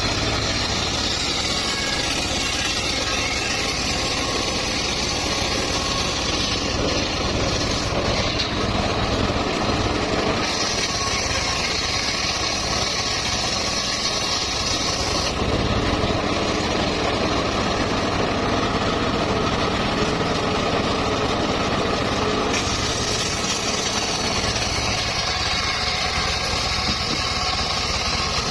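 Engine-driven sawmill saw running steadily while sawing mahogany, with a higher hiss that comes in twice for several seconds each time.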